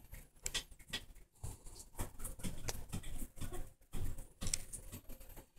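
Cat's paws working inside a ceramic sink basin: irregular light taps and scrapes on the porcelain.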